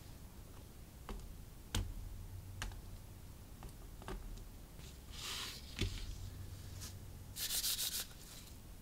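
Hands handling an action figure and its plastic packaging: faint scattered clicks and taps, with two short rubbing sounds, one about five seconds in and a slightly louder one about seven and a half seconds in.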